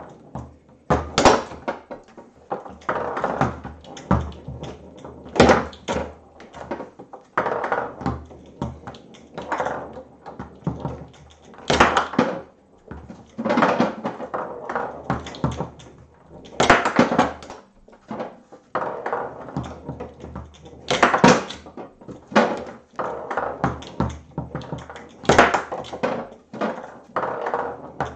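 Foosball table in play: the hard ball clacking off the plastic men and the table, with a loud knock every second or two and rolling and rattling between, as the rods are worked to pass and control the ball.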